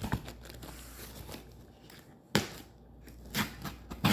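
A package being opened by hand: faint rustling of packaging, with a sudden sharp rip or knock a little past halfway and a few smaller clicks near the end.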